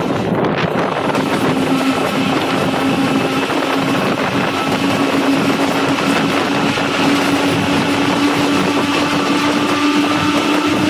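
Pakistan Railways RGE-20 diesel locomotive under way, heard from inside its cab: steady, loud running noise, with a hum that comes in about a second in and rises slightly in pitch.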